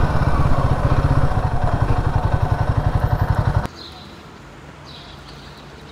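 Royal Enfield Himalayan's single-cylinder engine running at low speed with an even, low pulsing beat. About two-thirds of the way in it cuts off abruptly to quiet street background with a few faint bird chirps.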